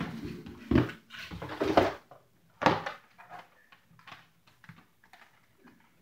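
Handling noise from a plastic mini fridge and its packaging: a few loud bumps and rustles in the first three seconds, then quieter scattered clicks and knocks.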